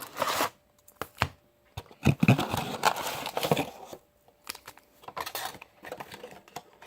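Hockey card packs and their box being handled: bursts of crinkling and rustling with small clicks and knocks, separated by quiet gaps.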